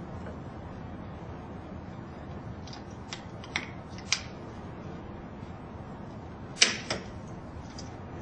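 Rollator arm and hand screw being fitted into the frame: a handful of short, sharp clicks and knocks of the parts meeting, the loudest a quick pair about six and a half seconds in, over a steady low hiss.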